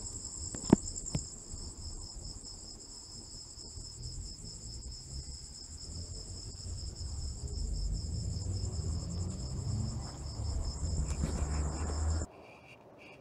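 Crickets trilling steadily at night in a high, evenly pulsing chorus, over a low rumble, with a sharp click about a second in. The trilling cuts off suddenly near the end.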